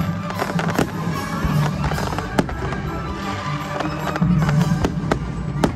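Fireworks display: aerial shells bursting with sharp bangs every second or so, over a steady music soundtrack.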